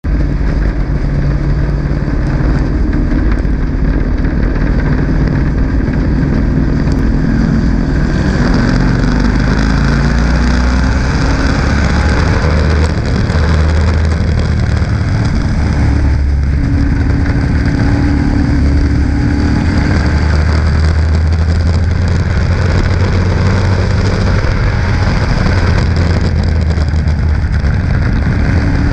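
Super Stock race car's engine running steadily at racing speed, heard from a camera on the car's hood, with the low engine note holding fairly even and shifting only slightly.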